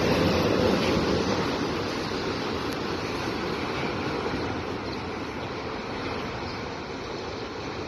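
Autorack cars of a Canadian Pacific freight train rolling over a steel truss bridge. The wheels on the rails make a steady noise that fades as the end of the train moves away.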